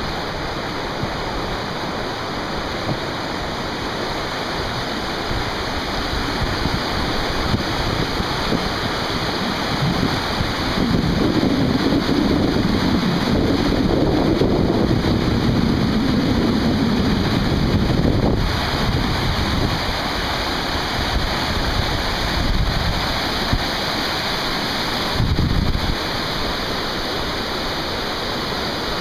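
Steady rushing of river rapids mixed with wind buffeting the microphone, growing louder for several seconds midway.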